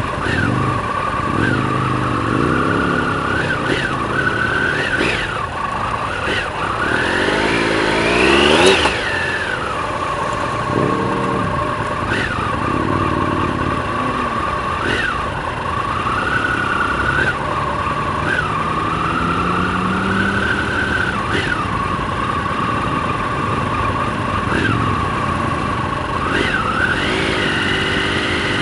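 Motorcycle engines on a group ride, heard from one of the bikes: revs repeatedly climbing and dropping back as the bikes pull away and change gear. The loudest is a sharp rev about a third of the way in.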